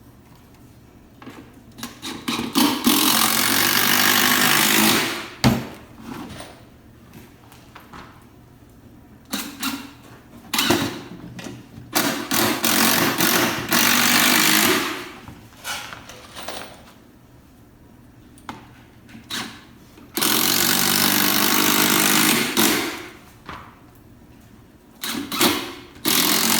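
Power driver running in repeated bursts, driving four screws into the spliced wooden piece of a beehive box, with short starts and stops between the longer runs.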